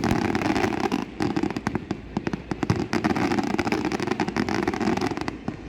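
Fireworks going off in quick succession: a dense run of sharp bangs and crackles that eases off near the end.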